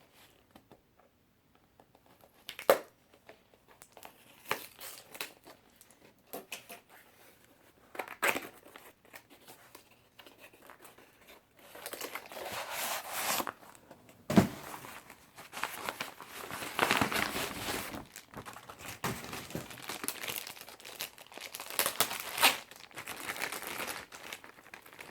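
Packaging crinkling and tearing as a new wrench is unwrapped, in irregular bursts, with a few sharp knocks, the loudest about halfway through.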